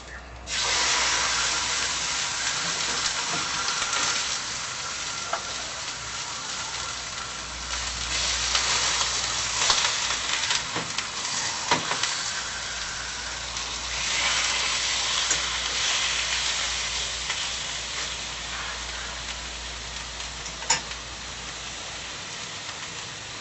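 Steak sizzling in a hot frying pan: the sizzle starts suddenly about half a second in as the meat goes into the pan, then runs on, swelling and easing, with a few sharp clicks.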